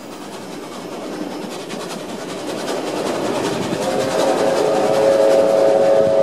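Passing train carriages rumbling and clattering over the rails, growing louder. About four seconds in, a train horn sounds a steady multi-tone chord for about two and a half seconds.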